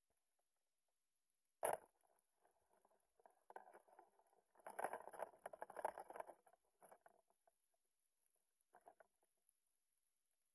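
A sharp knock, then a few seconds of crackling, scraping clatter and scattered ticks, heard underwater: a speared grouper struggling on the spear shaft against the rocks.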